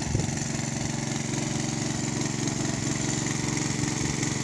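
Small engine-driven water pump running steadily, with a brief knock just after the start.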